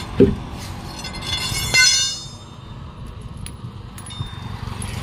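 Steady rumble of road traffic, with a sharp metallic clink that rings briefly a little before the middle.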